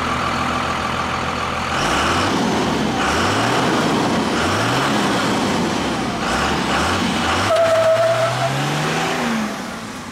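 Dodge Ram 2500's 5.9-litre Cummins turbodiesel running, with several short revs that rise in pitch. Near the end it pulls away, the engine note climbing steadily, with a short high whistle as it goes.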